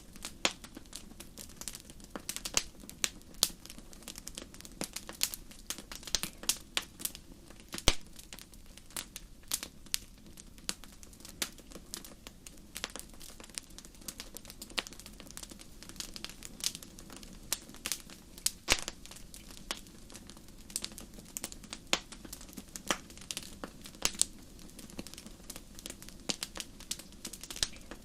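Wood campfire crackling: frequent irregular pops and snaps, some louder than others, over a soft steady low rumble.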